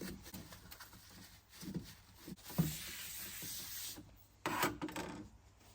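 Rubbing and scrubbing by hand to clean the rear brake fluid reservoir of a KTM 990 Adventure: a series of short irregular wiping strokes, a longer steady rub about halfway through, and a louder stroke near the end.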